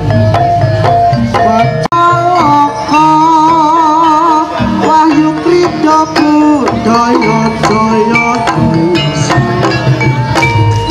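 Traditional Javanese dance accompaniment, played loudly: hand drums striking throughout under sustained melodic instrument lines, with one held high note wavering for a couple of seconds. There is a brief dropout about two seconds in.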